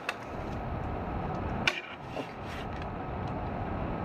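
Steady background hiss with a few light clicks from a stylus being handled, the clearest one a little under two seconds in.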